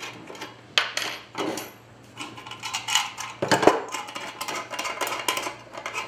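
Steel electrical junction boxes and a threaded box spacer being handled and taken apart on a wooden workbench: scattered metal clinks and knocks, with one louder knock a little past the middle.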